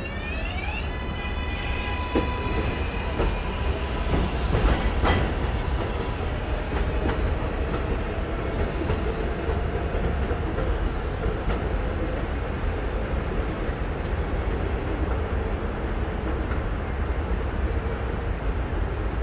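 An R188 subway train on the 7 line pulling out of the station. Its traction motors whine upward in pitch as it gets moving, a few wheel clacks over rail joints follow, and the train's rumble carries on as it draws away.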